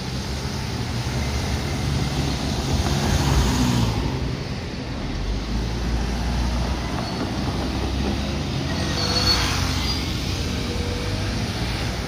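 Road traffic on a street crossing railway tracks: cars and a small kei truck driving past, swelling louder about three seconds in and again about nine seconds in.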